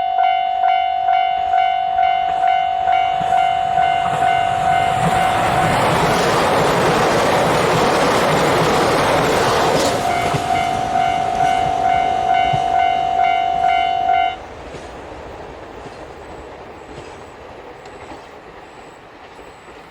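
Japanese level-crossing warning bell ringing in an even electronic ding-ding at about two strokes a second while a JR Hokkaido 261 series diesel limited express passes. The train's rush and rail clatter swell up through the middle and then fall away. The bell cuts off suddenly about three-quarters of the way through, leaving faint fading train noise.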